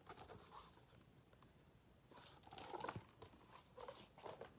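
Near silence, with faint rustling of a picture book's pages being handled and turned, about two to three seconds in and again near the end.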